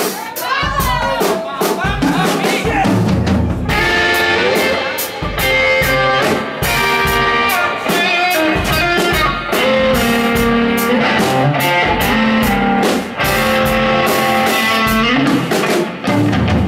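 Live band playing a song's instrumental intro, with electric guitar and drum kit; held chords come in about four seconds in.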